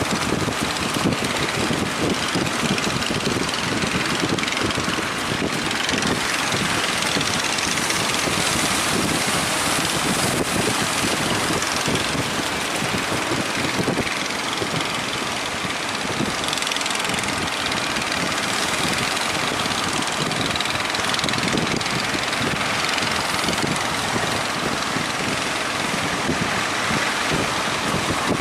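Fishing boat engine running steadily over a constant rush of wind and surf.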